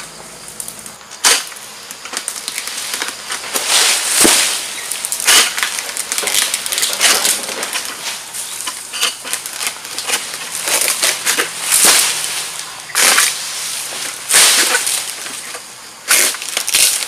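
Irregular rustling and crackling of dry palm fronds and undergrowth, a run of short scraping bursts with a few sharper snaps, the loudest near the start and toward the end.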